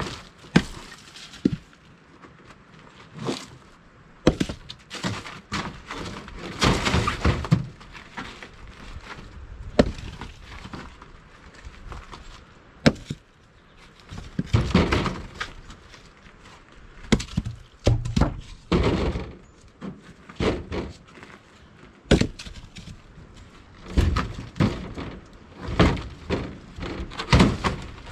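Chunks of firewood being handled and thrown down by hand, knocking against each other and landing with thunks and clatters at irregular intervals: single sharp knocks, plus several longer clattering runs of a second or two.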